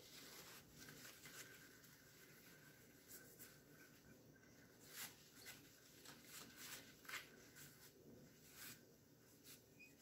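Paper towel rubbing across a whiteboard, wiping off dry-erase marker lines in an irregular string of short, faint swipes.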